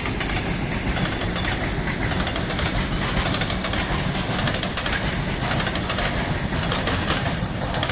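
Freight train wagons rolling past at speed: a steady heavy rumble with wheels clattering rapidly over the rail joints.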